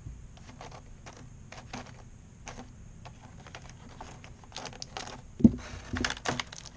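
Small plastic clicks and taps from handling a One:12 Collective action figure and its black plastic accessory tray while swapping its interchangeable hands. The loudest is a knock about five and a half seconds in, followed by a few more clicks.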